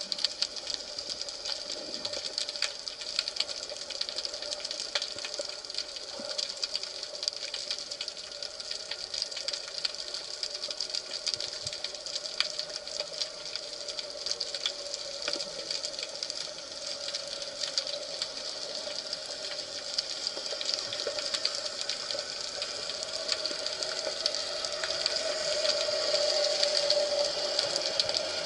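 Underwater ambience picked up through the camera underwater: a dense, steady crackle of tiny clicks over a faint steady hum, a little louder near the end.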